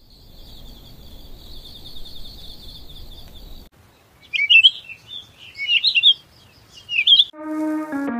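Crickets chirping in a steady, fast-pulsing high trill for about four seconds, a night-time ambience. The crickets cut off and songbirds chirp loudly in several short bursts, a morning ambience, before music comes in near the end.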